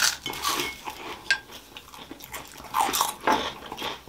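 Eating sounds: chewing and biting, with a spoon clinking and scraping on a plate in short irregular bursts.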